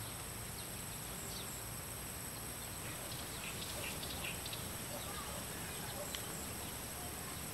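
Rural outdoor ambience: a steady high insect drone, like crickets or cicadas, with a few faint bird chirps scattered through it.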